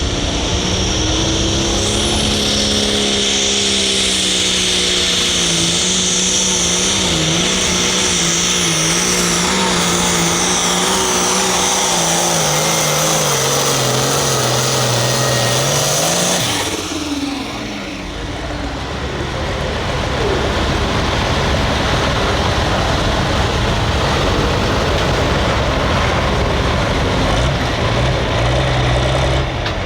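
Hot farm pulling tractor's diesel engine running flat out under load, its note sagging lower as it slows, then falling away suddenly about seventeen seconds in. After that a rougher engine sound builds up again.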